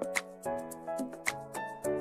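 Background music: held melodic notes with light percussive ticks keeping a steady beat.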